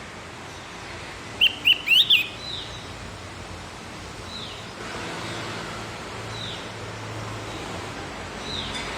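Javan grey-throated white-eye (opior jawa, cucak gentong) calling: a short downslurred whistle repeated about every two seconds, with a loud burst of four quick rising chirps about a second and a half in.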